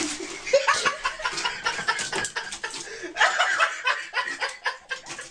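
A person laughing in quick, choppy bursts.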